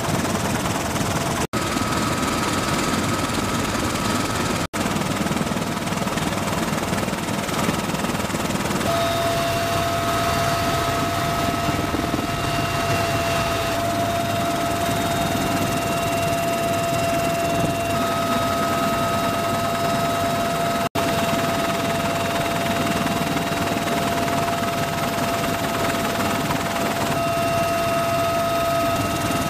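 Military helicopter in flight, heard from the open cabin door: steady rotor and engine noise with a few steady high tones running through it. The sound drops out for an instant three times.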